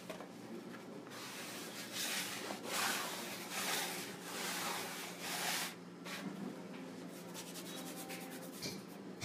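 Plastic bench scraper scraped across a floured wooden butcher-block workbench: a run of about five scraping strokes, followed by quieter rubbing and a few light taps.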